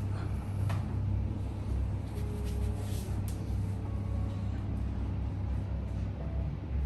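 Steady low rumble of background noise, with a few faint short clicks about a second in and about three seconds in.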